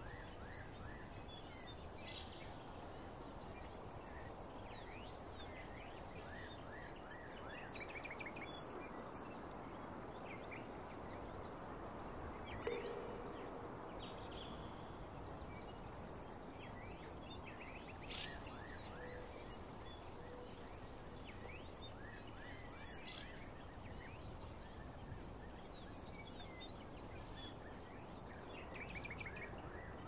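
Outdoor ambience: a faint steady background hiss with scattered short bird chirps and faint steady high-pitched tones, and one brief louder sound about halfway through.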